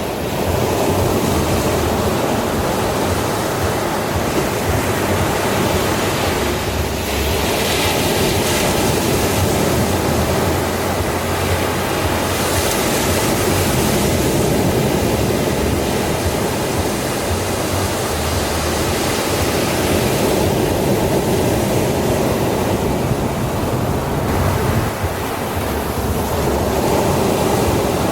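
Ocean waves breaking and washing onto the shore, a continuous surf wash that swells louder as waves break, about seven seconds in and again around twelve to fifteen seconds.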